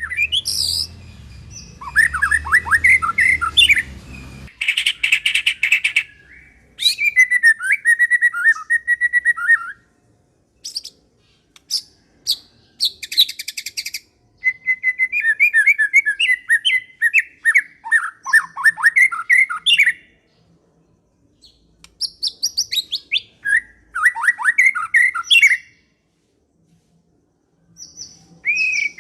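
A murai songbird singing: bursts of varied whistled notes and fast trills of a few seconds each, broken by short pauses, about seven phrases in all.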